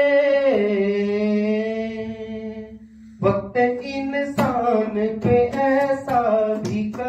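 A man singing a slow Hindi song: he holds a long note that steps down in pitch and fades away, then after a brief pause goes on with short melodic phrases.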